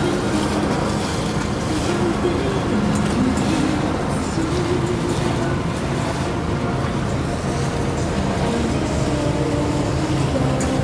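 Motor boat under way: its engine running at a steady drone, mixed with steady rushing wind and water noise.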